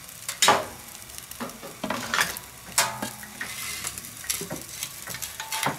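Long metal tongs clacking and scraping against a pizza stone as a pizza is gripped and shifted, several sharp clicks over a steady sizzling hiss.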